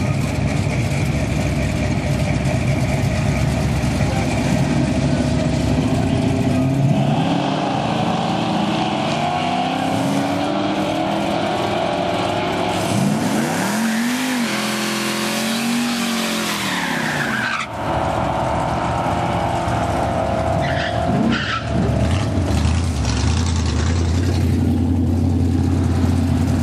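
1968 Plymouth Valiant drag car doing a burnout: the engine revs up and down while the rear tyres spin and squeal on the wet pavement. Over the last few seconds the engine runs with a steady low note.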